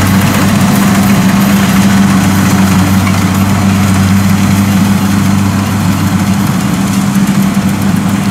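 Kubota combine harvester's diesel engine running steadily at working speed while cutting and threshing rice, a constant low hum that eases a little in the second half.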